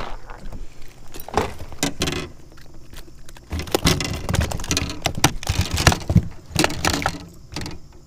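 A freshly caught bass landing in an aluminium jon boat with a hard knock, then flopping on the deck among the rods and tackle: scattered knocks at first, then a long run of rapid knocking and rattling near the middle as it thrashes while being grabbed for unhooking.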